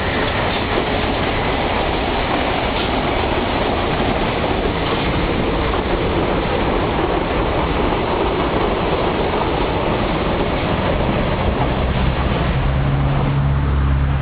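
Electric commuter train running along the tracks, a loud steady rumble of wheels on rail. A low steady hum joins near the end.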